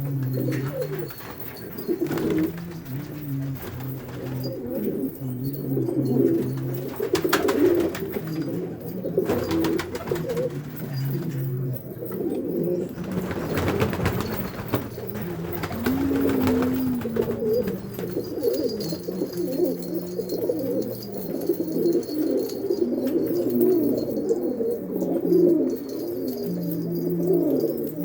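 A flock of domestic pouter pigeons cooing continuously, many low, overlapping coos at once, as in a pigeon loft.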